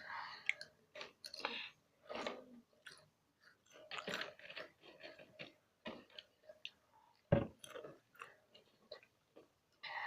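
Crunchy potato chips being chewed, in short irregular crunches, with a single dull knock about seven seconds in.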